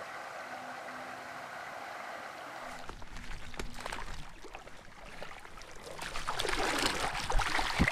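Steady rush of river water over a shallow riffle. About three seconds in, a hooked brown trout starts splashing and thrashing at the surface, in irregular bursts that grow louder over the last couple of seconds.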